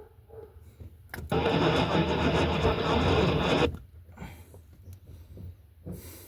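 A 1988 Chevy Suburban's starter cranking the engine for about two and a half seconds, starting about a second in and cutting off without the engine catching, when the key is turned in a newly replaced ignition switch.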